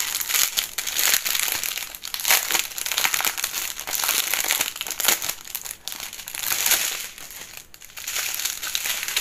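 Thin plastic bags of diamond painting drills crinkling as a strip of drill packets is handled and unfolded, with a brief lull about three-quarters of the way through.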